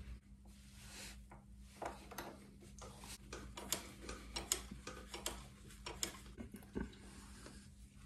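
Gloved hands working on a KTM 990 Adventure's rear brake parts: scattered light clicks and taps, the sharpest a few seconds in.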